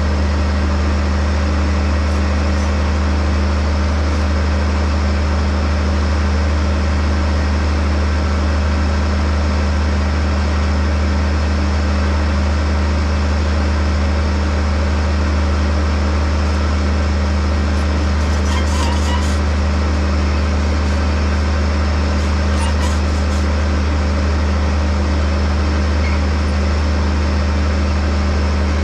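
Farm vehicle engine running steadily, a constant low drone with no change in pitch or loudness.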